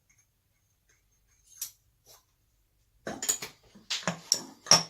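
Metal parts of an SU HD8 carburettor clicking and clinking under hand work on the jet and its lock nut. A faint tick comes about one and a half seconds in, then a quick run of sharp clicks over the last two seconds.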